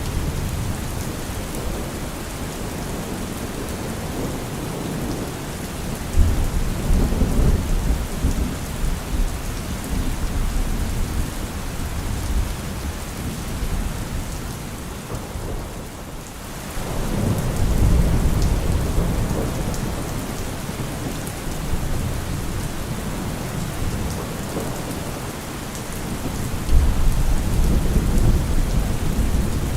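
Steady heavy rain with thunder rumbling: low rolls of thunder swell up about six seconds in, again at about seventeen seconds and once more near the end, over the constant hiss of the rain.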